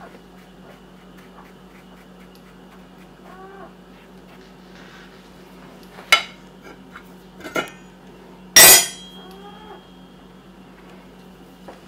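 Kitchen knife and brush knocking against a ceramic plate: three sharp clinks, the loudest about two-thirds of the way through. A cat meows faintly twice.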